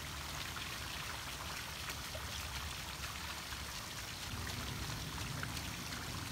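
Steady rushing outdoor background noise with faint scattered ticks and a low rumble, water-like in character.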